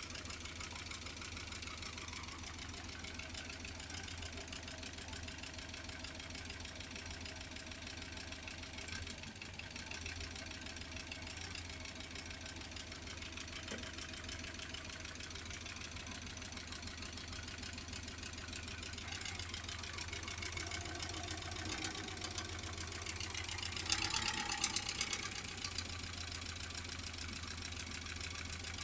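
Kia Sportage (first generation) engine running with a fast, steady knock, which the owner puts down to the fourth cylinder. It grows briefly louder near the end.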